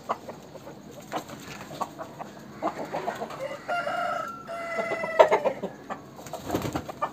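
A rooster crows once, a drawn-out call of about a second and a half in the middle, with short clucks before it. Sharp clicks are scattered throughout, the loudest just after the crow.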